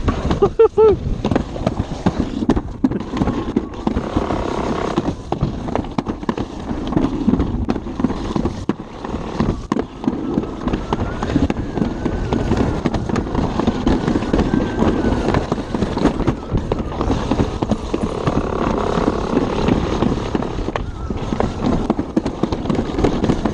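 Alpine slide sled running fast down a concrete chute: a continuous loud rumble and rattle of the sled on the track, with many sharp knocks through it.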